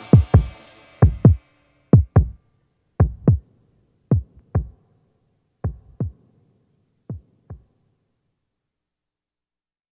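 Heartbeat effect closing a song: low paired lub-dub thumps, about one pair a second, slowing and growing fainter until they stop about three-quarters of the way through.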